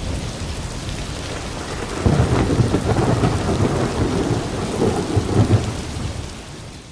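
Rain falling with a thunder rumble that grows louder about two seconds in, then fades out near the end.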